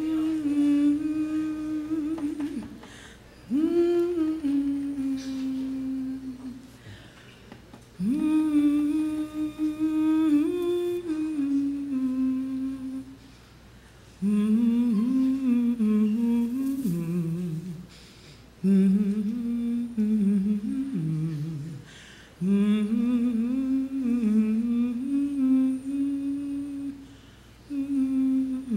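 A woman singing a slow, wordless melody without accompaniment, in long held phrases of a few seconds each with short breaths between, seven phrases in all.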